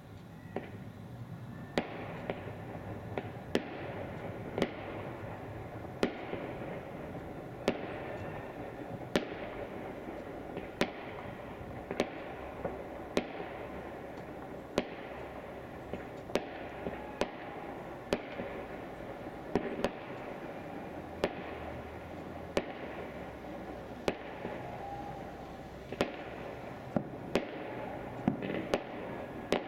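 Fireworks and firecrackers going off across a city neighbourhood: sharp bangs at irregular intervals, about one a second, each echoing away, over a steady background noise.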